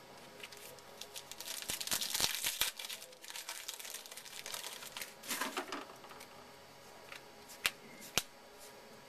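A baseball card pack wrapper being torn open and crinkled, then cards being handled, in two bursts of crackling rustle. Two sharp taps come near the end.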